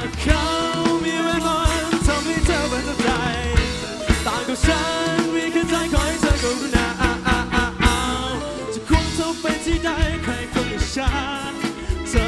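Live pop-rock band playing: a male singer sings a Thai song over electric guitars, keyboard and a drum kit with a steady beat.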